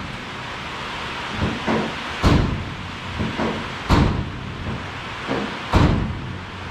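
Knocks and clunks from hand work on top of a flathead six-cylinder engine: three loud knocks about a second and a half apart, with fainter taps between them.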